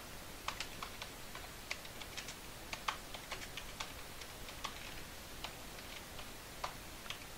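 Computer keyboard keys being typed in faint, irregular clicks as a command is entered.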